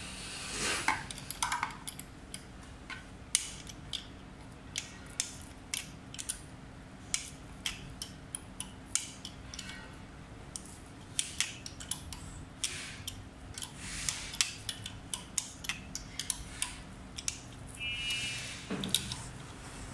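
Irregular small metallic clicks and taps, one or two a second, as a small bolt on an electric scooter's headlight bracket is fitted and turned by hand.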